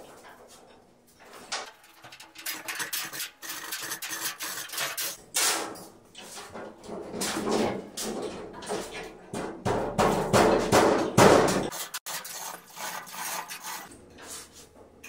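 Metal clanking, knocking and chain rattling as a steel pickup truck bed is turned on a homemade rotisserie of engine hoist, hanging chain and movers dolly. The knocks come in irregular clusters, busiest and loudest about two-thirds of the way in, then die away.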